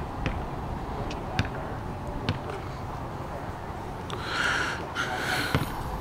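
Steady low outdoor rumble with a few faint clicks, then, about four seconds in, a run of short breathy huffs.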